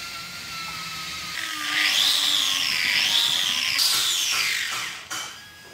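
Handheld angle grinder grinding down a replacement spreader end cap so it fits. Its whine swells about a second and a half in, the pitch dipping and rising as the disc bites into the part, then dies away shortly before the end.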